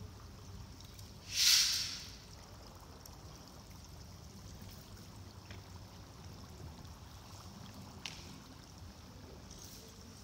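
A low steady hum, with one short loud hiss about a second and a half in and a faint click near the end.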